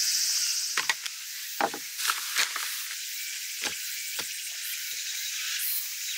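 A few short knocks and bumps as a person sits down on a wooden picnic-table bench. A steady high hiss runs underneath, louder in the first second.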